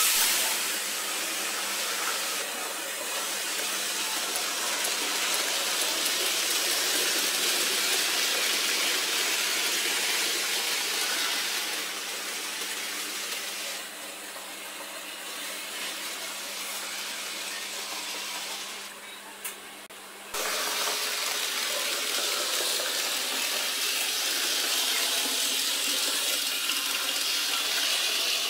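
Model trains running on a model railway layout, giving a steady high hissing rush of small wheels and motors on track. It drops quieter in the middle and comes back abruptly about two-thirds of the way through.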